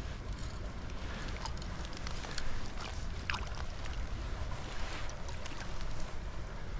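Wind rumbling on the microphone over the steady rush of creek water, with scattered small clicks and knocks.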